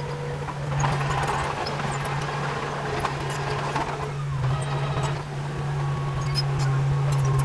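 Heavy diesel engine of a bulldozer running steadily, with stretches of rougher working noise and small clicks over it, the loudest about a second in.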